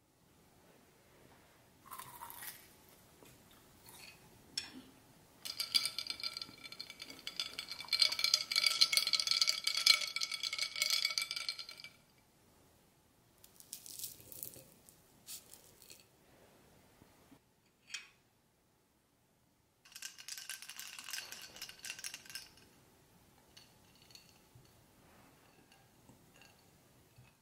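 Ice cubes rattling and clinking against a drinking glass, with ringing tones, in two bouts: a long one and a shorter one later. Between them come a few light clinks of cutlery on a plate.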